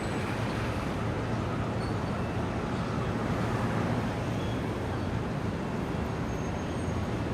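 Steady city street traffic: a continuous wash of cars, motorbikes and auto-rickshaws running and passing, with a low engine hum underneath.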